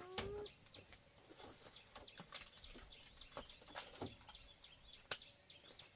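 Quiet rural background: faint bird chirps and scattered light clicks and ticks.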